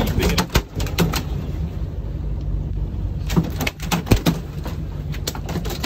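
Boat engine running with a steady low rumble, with scattered sharp knocks and clatter on top.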